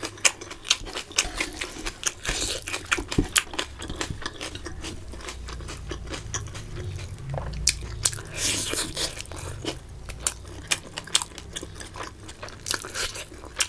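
Close-miked eating: a person chewing and crunching on fried fish and rice, with many small, sharp, wet mouth clicks.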